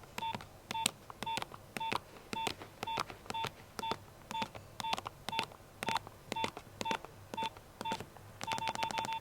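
Nokia 1100 keypad beeps as its buttons are pressed: each press gives a short, high beep on the same pitch with a small plastic key click, about two presses a second, speeding up to a quick run near the end.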